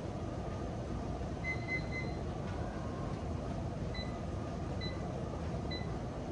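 Electronic beeps from a gym exercise-machine console: a quick run of beeps about one and a half seconds in, then three single beeps just under a second apart, over steady background noise.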